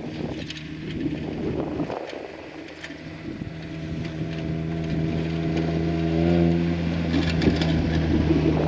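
A steady engine or motor hum that comes in about three seconds in and grows louder, over crunching footsteps in snow.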